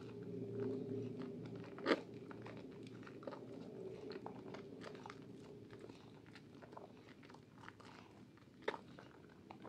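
Hands squeezing and kneading thick soap lather around a wet bar of soap: wet squishing with many small crackles of popping foam. A sharper squelch stands out about two seconds in and another near the end.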